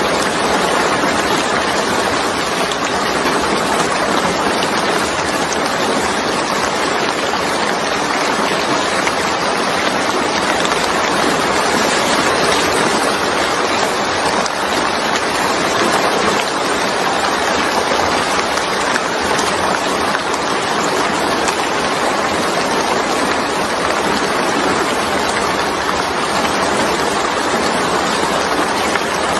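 Steady rain falling on a wet, puddled surface: an even, unbroken hiss of drops that never changes in strength.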